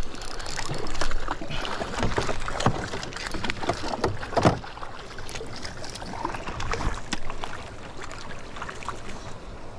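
Water sloshing and splashing around a small fishing boat, with scattered knocks and clicks from the tackle and hull while a hooked trout is played, and a louder thump about four and a half seconds in.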